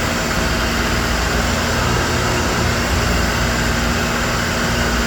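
Dairy milking pipeline system running: a steady hiss and hum as milk is drawn under vacuum into the receiver jar, with a constant mechanical tone that cuts off at the end.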